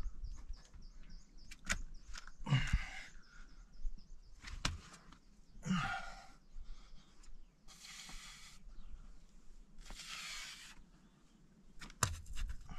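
A boulderer breathing hard through a hard sequence of moves: four forceful exhalations a few seconds apart, the first two with a short grunt. There are a few sharp taps and scuffs from hands and climbing shoes on the rock.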